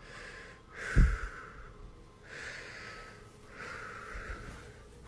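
A frightened person breathing hard, four breaths about a second and a quarter apart, with a dull low thump about a second in.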